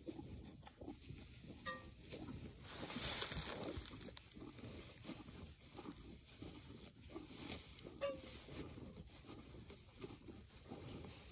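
Hand milking a Jersey cow: milk squirting from the teat into a stainless steel bowl of foamy milk as a run of soft, repeated strokes. A brief louder rustling hiss comes about three seconds in, and two short ringing clicks come near two and eight seconds in.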